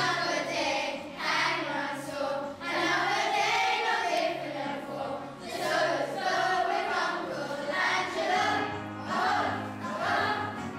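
A group of children singing together over instrumental accompaniment with a steady bass line.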